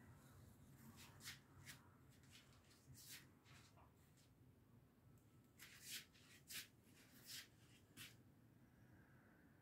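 Faint rustling and brushing, a handful of short scrapes between about one and eight seconds in, over near silence.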